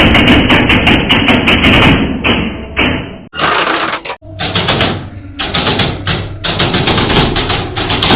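Worn motorcycle chain and sprockets clattering loudly while the engine drives the rear wheel: a fast, irregular rattle of clicks and knocks as the slack chain rides up over the rounded teeth of the worn front sprocket. About three seconds in there is a brief hiss and the rattle stops, then it starts again.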